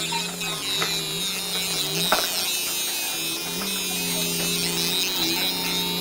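Fiber laser marking machine etching a mirror: a buzzing hum whose pitch holds, then steps and slides as the scan head traces the pattern, over a high hiss, with a few sharp clicks.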